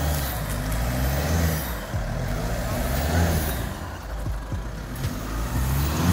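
Toyota Fortuner SUV's engine revving up and down under load while climbing a rocky off-road trail, with a few short knocks between the revs.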